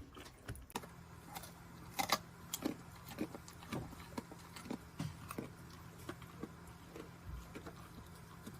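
Scattered light clicks and taps of eating, with chewing, irregular and loudest about two seconds in. A low steady hum comes in about a second in.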